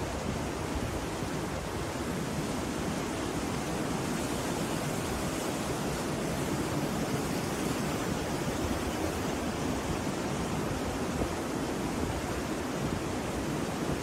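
Rough sea surf breaking and washing onto a beach, a steady, dense rush of water noise.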